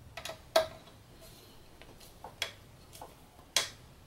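A screwdriver-type tool working the set screw on the stepper-motor shaft coupling inside an aluminium motor mount, giving a series of sharp, irregularly spaced metal clicks and ticks, the loudest about half a second in and near the end.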